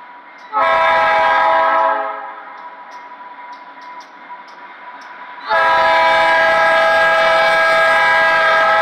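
GE B23-7 diesel locomotive's air horn sounding a short blast and then, after a few seconds, a long blast, the closing short-long of the grade-crossing signal. A crossing bell dings steadily between the blasts.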